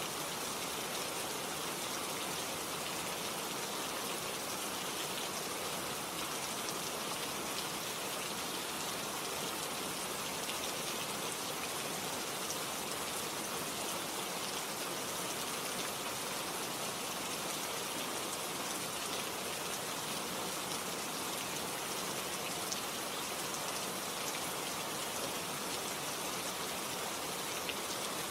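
Steady rain falling, an even hiss of many drops that keeps up without a break.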